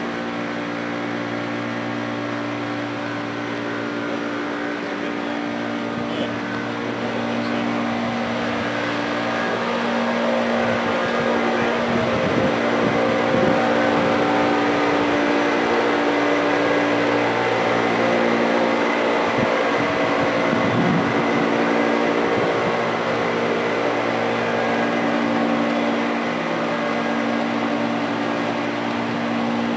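Steady machinery hum with several fixed tones over a constant rushing noise, getting a little louder around the middle, like running building ventilation or air-handling equipment.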